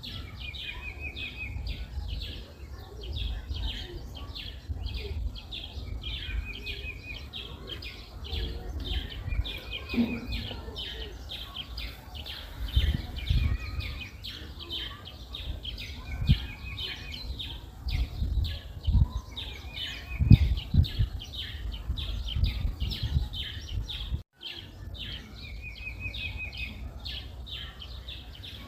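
Wild birds chirping continuously, with one short trill recurring every few seconds. Irregular low thumps close to the microphone.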